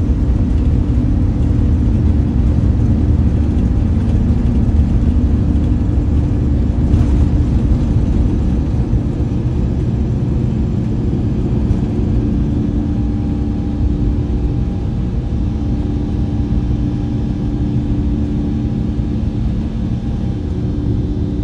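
Cabin noise of an Airbus A350 on its takeoff roll and lift-off: its Rolls-Royce Trent XWB engines at takeoff thrust over a steady low rumble. The level eases slightly over the second half, and a steady higher hum joins a little past halfway.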